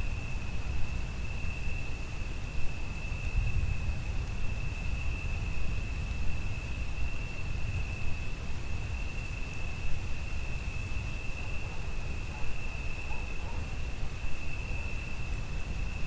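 Chorus of crickets trilling in one continuous high-pitched note, over a low rumble and a faint hiss of rain.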